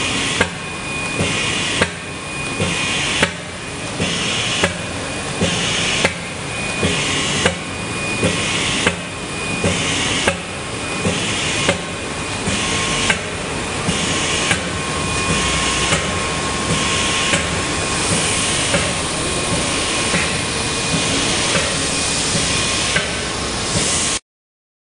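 Automatic roll-to-roll flat screen printing machine running through its print cycle: a sharp mechanical knock repeating at an even pace, about one a second or a little faster, over a steady hiss and a steady whine. It cuts off suddenly near the end.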